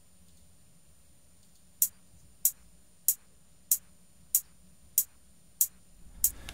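Metronome click counting in eight even beats, about a second and a half a second apart in pace, starting about two seconds in: the count-in before recording the first loop.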